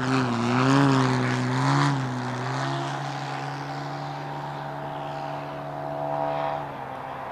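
Giant CAP-232 RC aerobatic plane's 3W-684 two-stroke petrol engine and propeller at high power. The note wavers up and down for about the first two seconds on a low pass, then holds one steady, quieter note as the plane climbs away, and stops short near the end.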